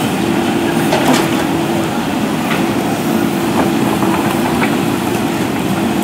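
JCB 3DX backhoe loader's diesel engine running steadily under load while the backhoe arm lifts its bucket, with a few light knocks.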